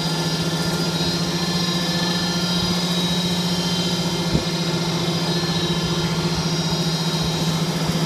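HVAC duct production line machinery running with a steady hum made of several constant tones, with one light knock about four seconds in.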